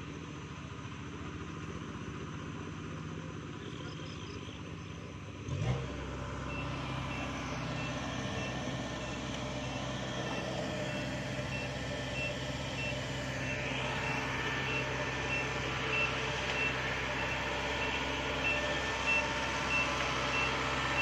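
Diesel engine of a heavy farm vehicle running; about six seconds in it comes up louder with a brief thump, and a reversing alarm starts beeping steadily about twice a second over it.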